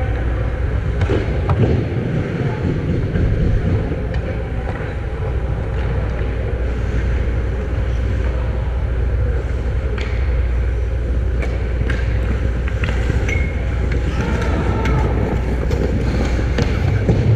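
Ice-hockey play heard from the goal: skates scraping and carving the ice, with scattered sharp clacks of sticks and puck, over a steady low rumble.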